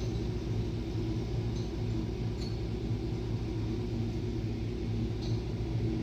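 A steady low mechanical hum, with a few faint light clinks.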